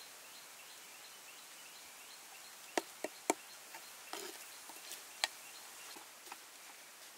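Insects chirping steadily in an even, rapid pattern, with a few sharp clicks: three close together about three seconds in and one more near five seconds.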